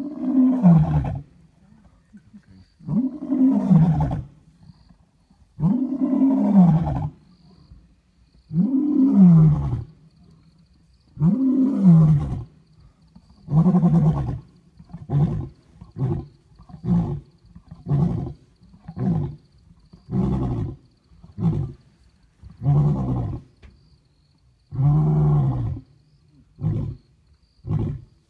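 Lion roaring a full bout: about five long, deep roars, each falling in pitch, a few seconds apart, then a run of shorter grunts coming faster, about one a second.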